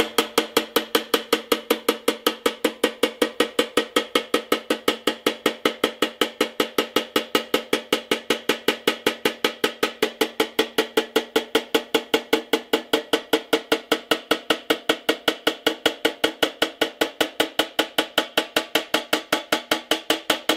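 Plastic-tipped hammer tapping rapidly and evenly, about four taps a second, on the tabs of a pressed-steel Tonka truck bed to fold them over. Each tap makes the thin sheet metal ring.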